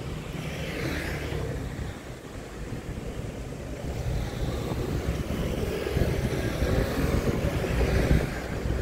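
EMU3000 electric train approaching through a tunnel: a low rumble mixed with wind noise on the microphone, swelling louder over the last few seconds.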